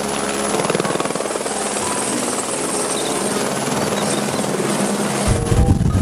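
Light helicopter flying low, its main rotor chopping at a fast, even rate over a steady high whine. About five seconds in, a deep rumble swells up underneath.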